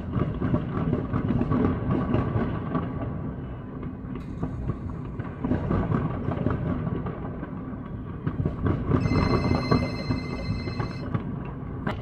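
New Year's fireworks going off: a dense run of crackles and pops over a low rumble. A steady high-pitched tone sounds for about two seconds near the end.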